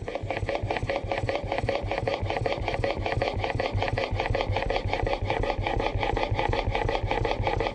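Plane blade in a honing guide rubbed back and forth on a wet 1000-grit waterstone: a steady scraping in rapid, even strokes.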